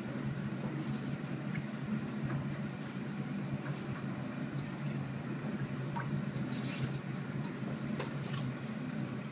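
Underwater treadmill running with a steady motor hum, water sloshing and dripping around it, and a few sharp clicks in the last few seconds.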